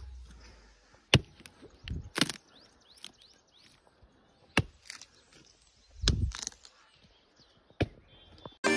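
A few sharp, separate chopping blows into a dry, dead fallen tree trunk, each with a crack of splitting wood. Music comes in near the end.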